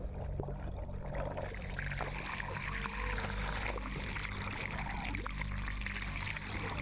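Underwater noise picked up by a camera in its housing: a steady crackling water hiss over a low hum.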